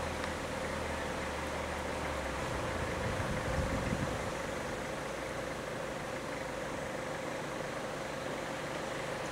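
Vehicle engine idling under a steady hiss. Its low hum stops about two and a half seconds in, and a brief low rumble follows about a second later.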